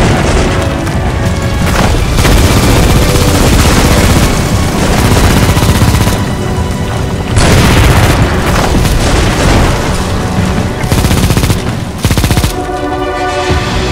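Dramatic soundtrack music laid under loud booming explosion and battle sound effects. Near the end the booms drop away and the music carries on by itself.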